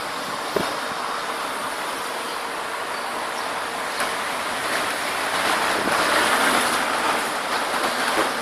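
Cloth towel rubbing and wiping across a car's body panel, a steady scrubbing hiss that grows louder around the middle and eases near the end.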